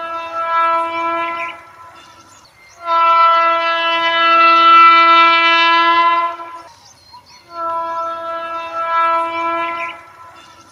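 Indian Railways WAP-7 electric locomotive's air horn sounding three long, steady blasts, the middle one the longest and loudest.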